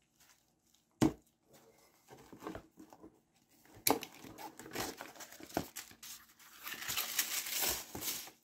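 Packaging being handled and torn open by hand, rustling and crinkling, with a sharp knock about a second in and denser crinkling over the last couple of seconds.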